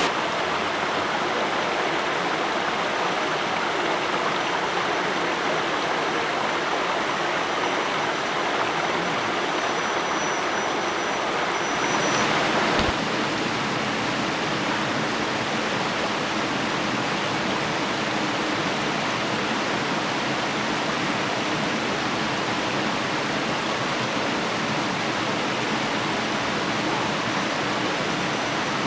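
Shallow creek running over flat rock slabs and small cascades: a steady rush of water. Its tone shifts slightly about twelve seconds in.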